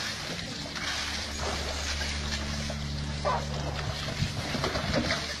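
Water splashing and sloshing in a plastic tub as baby elephants wallow in it, over a steady low hum. A few short sounds that could be voices or calls come near the end.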